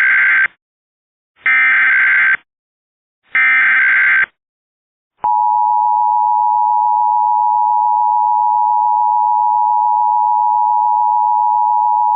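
Emergency Alert System header: the end of one burst of screeching digital data and two more bursts about a second apart, then, about five seconds in, the steady two-tone EAS attention signal (853 and 960 Hz together) that announces the alert.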